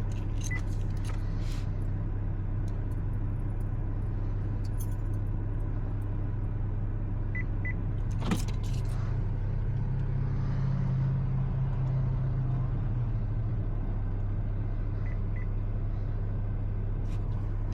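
Buick's engine idling steadily, its pitch lifting slightly for a few seconds around the middle. A few faint short beeps and a single click sound over it.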